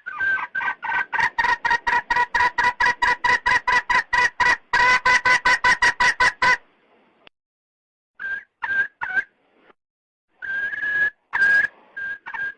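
Red junglefowl hen's call to a rooster: a fast run of short clucking notes, about five a second, for some six seconds. Then a pause, a few scattered notes, and two or three longer drawn notes near the end.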